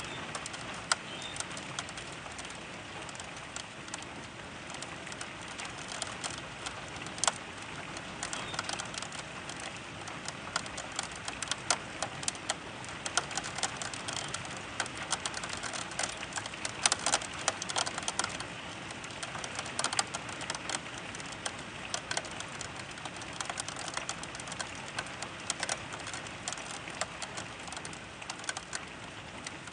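Steady rain hiss with raindrops tapping irregularly on the window glass, the taps coming thickest a little past the middle.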